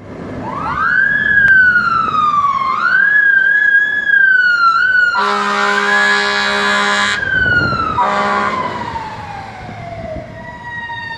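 Fire truck siren wailing, its pitch rising and falling, with two long horn blasts in the middle, the second one short. Near the end the siren winds steadily down in pitch.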